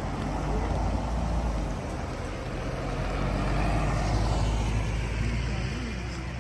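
Road traffic: a motor vehicle passing over a steady low engine rumble, loudest about four seconds in and fading after.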